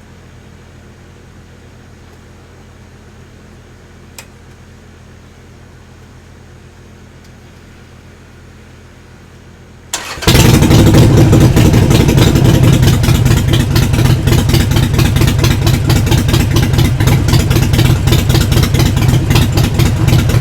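A 2018 Harley-Davidson Iron 883's air-cooled 883 cc V-twin is started and idles. The first half is quiet apart from a single click about four seconds in; about ten seconds in the starter turns briefly, the engine catches at once and runs loudly with rapid, even pulses. It is a cold start, run to warm the oil so it drains properly.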